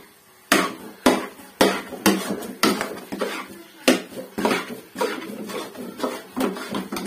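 Metal spoon knocking and scraping against a metal karahi while stirring thick semolina-and-jaggery halwa, about twice a second in a steady stirring rhythm.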